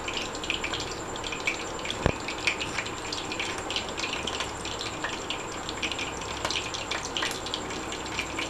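Sesame oil heating in a frying pan on an induction cooktop, coming up to temperature, with faint irregular crackling over a steady hiss and a steady high thin whine.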